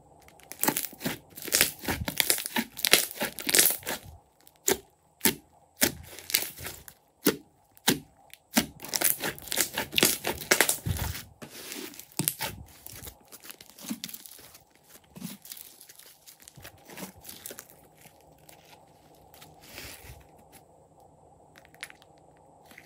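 Fluffy slime being stretched, folded and pressed by hand, giving off dense crackling and popping. The crackles come thick and loud in the first half, then thin to scattered softer pops.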